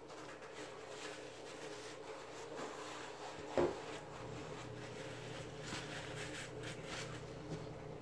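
Quiet handling noises at a dinner table: faint rustling and small clicks as a sheet of paper towel is pulled off a roll and handled. A single brief louder sound comes about three and a half seconds in.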